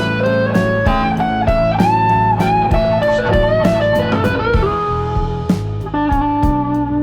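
Background music: an electric guitar playing a bluesy melody over bass and a steady drum beat.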